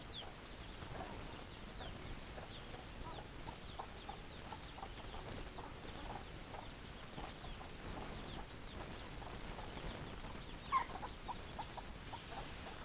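A flock of hens clucking: many short, scattered clucks, with one louder call about eleven seconds in.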